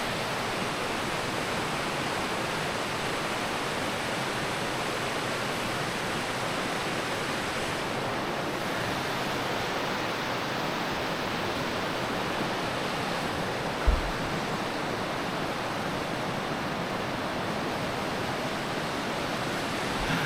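Steady rushing of a mountain stream in a rocky gorge, an even unbroken wash of water noise. One brief low thump about two-thirds of the way through.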